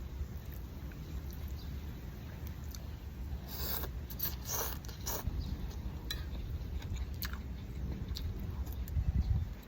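Close-up eating sounds: chewing with a few short crunches between about three and a half and five seconds in, as of crispy fried toppings in a bowl of noodle soup.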